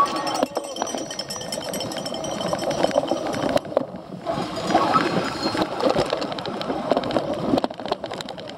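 Cyclocross bike rattling and clattering over rough ground, heard from a camera mounted on the bike, with many small knocks and clinks.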